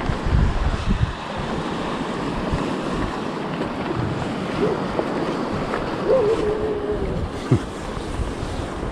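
Sea waves washing against shoreline rocks, a steady rush of surf. Wind buffets the microphone in the first second or so, and a faint short wavering tone sounds briefly in the middle.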